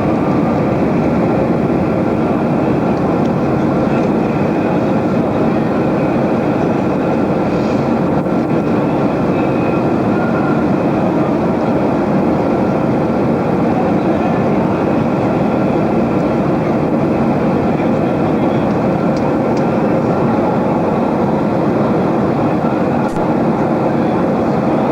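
Jet airliner cabin noise heard from a passenger seat: a loud, steady rush of engine and airflow noise with a faint hum, unchanging throughout.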